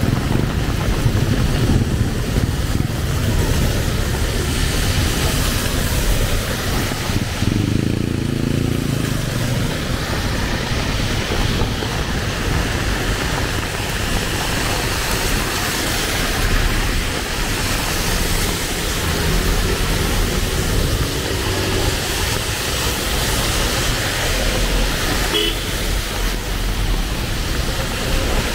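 Heavy rain falling steadily on a city street, with road traffic going past. A vehicle engine stands out briefly about 8 seconds in and again around 20 seconds.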